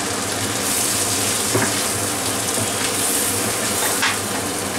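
Freshly added cashew paste sizzling in hot fat in a frying pan while a wooden spatula stirs it, with a couple of short spatula scrapes. A steady low hum runs underneath.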